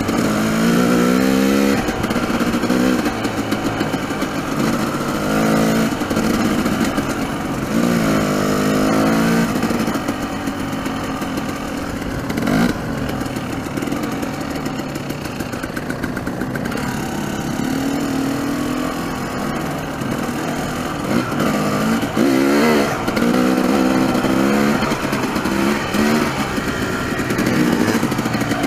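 Dirt bike engine ridden over a rough trail, heard from on the bike. Its pitch climbs and drops again and again as the throttle is opened and closed, over a steady rushing noise.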